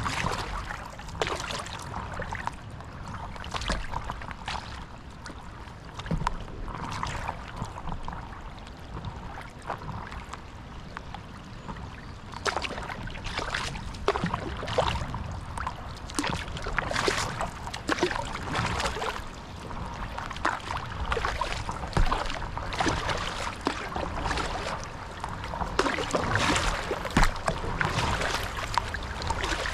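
Paddle-board paddle dipping and pulling through the water in repeated splashy strokes, one every second or two, over a steady low rumble.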